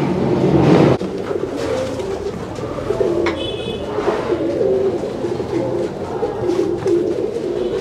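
Many domestic pigeons cooing together, a steady chorus of overlapping low coos.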